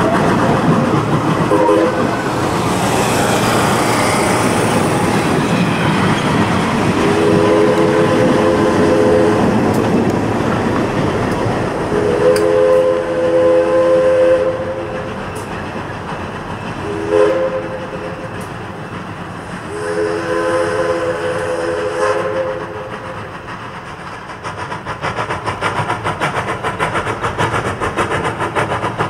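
A steam train passes close by with its wheels clicking over the rail joints. The 0-4-0 tank locomotive's chime whistle sounds one short toot, then long, long, short, long, the grade-crossing signal. Near the end, quick, even exhaust beats grow louder as the locomotive works nearer.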